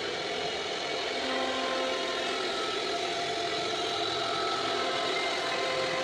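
CNC router spindle running a wide surfacing cutter across a wooden door panel, planing it flat. A steady machine whine with several held tones sits over the noise of the cut, and a further tone joins about a second in.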